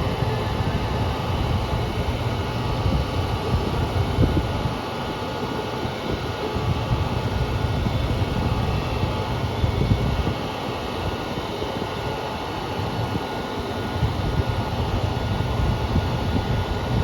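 KiHa 200 diesel railcar standing and running at the platform, a steady mechanical rumble with faint steady tones above it. It includes the abnormal noise that car KiHa 200-1551 made throughout this run, the fault that soon took the unit out of service.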